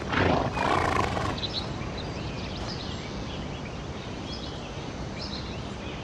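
A horse gives a loud, rough snorting call in the first second and a half, ending in a short call that falls in pitch. After it come faint, scattered high chirps over an outdoor hush.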